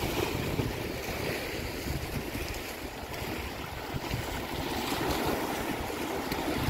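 Small sea waves washing and splashing against the rock boulders of a breakwater, a steady rushing with some wind buffeting the microphone.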